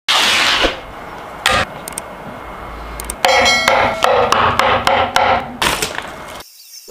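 Food-prep sounds: packaging crinkling at the start, then a run of sharp knife knocks on a wooden end-grain cutting board as a block of tofu is sliced, and a plastic bag of dried kelp rustling near the end.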